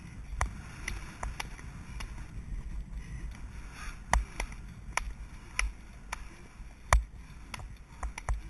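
Horse galloping on a soft forest track, heard from a rider-mounted camera: irregular sharp hoofbeat knocks, about two a second at times, over a low rumble of wind on the microphone.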